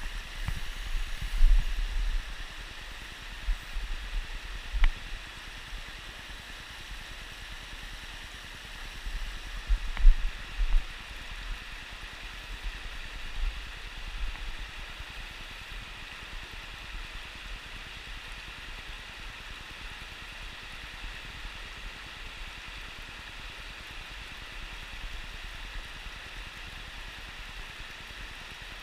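Mountain stream running over rocks: a steady hiss of flowing water. Irregular low bumps on the microphone in the first dozen seconds, the loudest about a second and a half in and around ten seconds in.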